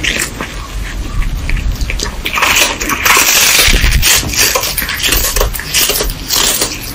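Cat gnawing and crunching a dried fish held in its paws, close to the microphone: a dense run of wet crackling chews.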